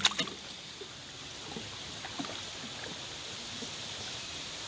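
Small wooden canal boat drifting on the water: a faint, steady wash of water moving and lapping around the hull. A couple of brief, sharp noises come right at the start.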